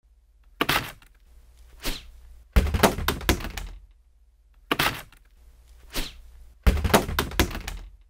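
A series of about six sharp thuds and knocks, spaced out over several seconds, some with a short ringing tail: thrown objects, vinyl records and other household items, striking their targets.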